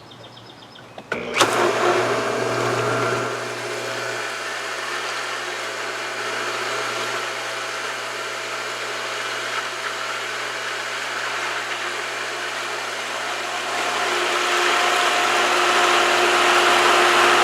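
Pool pump's electric motor switched on about a second in and running steadily, with rushing water and air as it primes after a backwash. The sound grows louder over the last few seconds.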